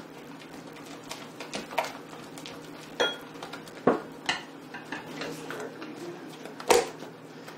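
Silicone spatulas stirring and scraping thick hot-process soap batter in glass bowls, with a few sharp knocks of spatula against glass; the loudest knock comes near the end.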